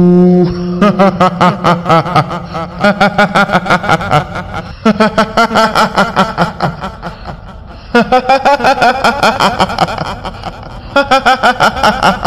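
Kuntilanak ghost laughter, a high-pitched cackling 'hihihi' in quick repeated bursts, coming in several long runs over a steady low drone.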